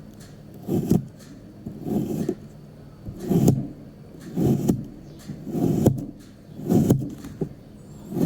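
Kinetic sand being cut and pressed, a muffled crunching swell about once a second, seven times over.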